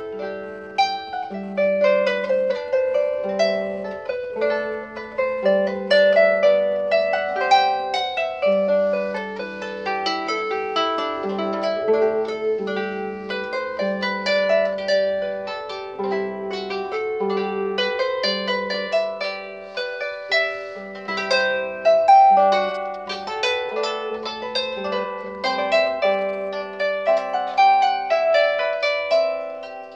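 Mira 27 lever harp played with both hands: a steady stream of plucked notes, a melody over repeating low bass notes.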